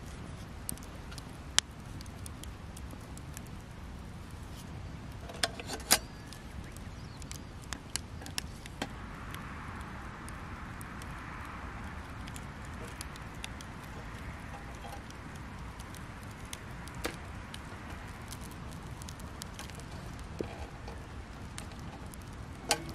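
Wood campfire crackling, with scattered sharp pops and snaps over a steady low rumble; a soft hiss rises for a few seconds in the middle.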